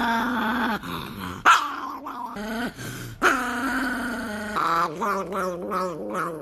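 Chihuahua growling and snarling in several wavering bursts, broken by a couple of sharp clicks.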